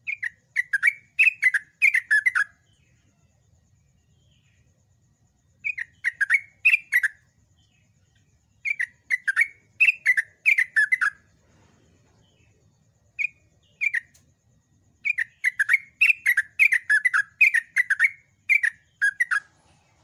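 Yellow-vented bulbul singing its long, loud song in several bursts of rapid chattering notes, each run lasting one to four seconds and separated by short pauses.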